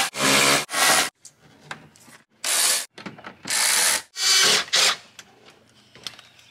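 Cordless impact driver running in several short bursts of about half a second each, driving the dash screws back in. The bursts stop about five seconds in.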